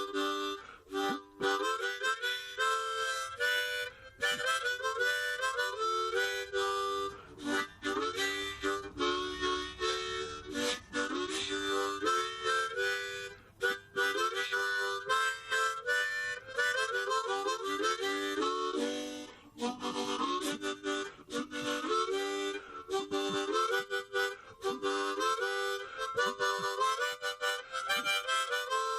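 Background instrumental music: a lively melody of quick, changing notes over chords.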